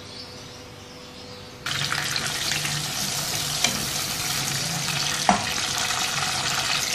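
Tomato wedges sizzling in hot oil in a wok. The sizzling starts abruptly about a second and a half in, with a spatula stirring through it and a single sharp knock about five seconds in.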